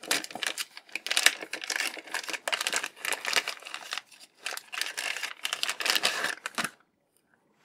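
Clear plastic zip-lock bag crinkling and rustling in the hands as it is pulled open, in a dense run of irregular crackles that stops about a second before the end.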